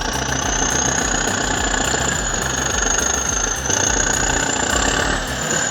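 Heavy diesel engine of a bulldozer running steadily with a low, even pulse and a thin high whine over it.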